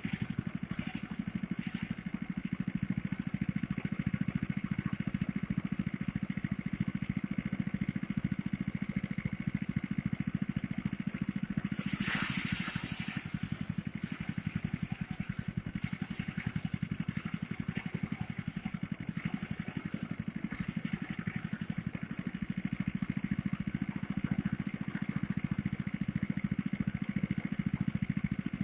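Small engine of a motorised rice thresher running steadily, with a brief burst of hissing about twelve seconds in.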